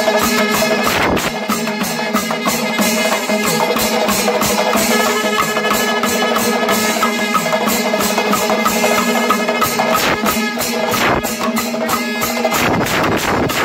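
Panchavadyam, the Kerala temple percussion ensemble, playing: dense, rapid strokes of timila and maddalam drums with ilathalam cymbals, over a continuous ringing tone.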